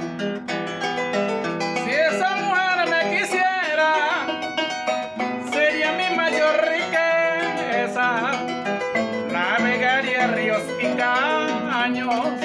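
Harp playing an instrumental interlude between sung verses: a plucked melody over steady bass notes.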